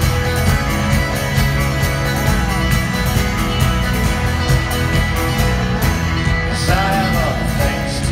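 Live folk-rock band playing an instrumental passage: strummed acoustic guitar and upright double bass over a steady driving beat, amplified through an arena PA.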